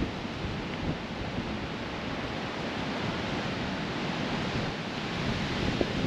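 Gale-force wind blowing across the microphone: a steady rushing noise with a low, fluctuating rumble.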